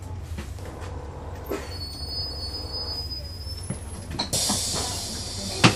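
Cabin of a 2011 NABI 40-foot transit bus, its Cummins ISL9 diesel running with a steady low hum. A high-pitched brake squeal comes about two seconds in, then a loud hiss of released air a little after four seconds, and a sharp clunk near the end, which is the loudest sound.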